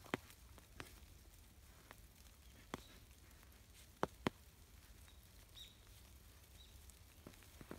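Faint, scattered soft crunches and taps of two Labrador puppies' paws in snow as they play, the loudest pair about four seconds in, with a few faint high chirps in the middle.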